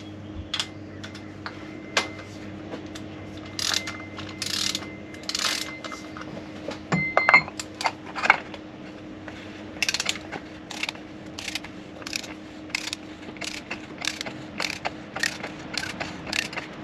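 Ratchet wrench clicking in short, evenly spaced strokes, about one and a half a second, as an oil filter housing cap is snugged down. It only needs to be snug, not tight, because the O-ring does the sealing. Earlier there is some handling rustle and a single metallic clink of the tool.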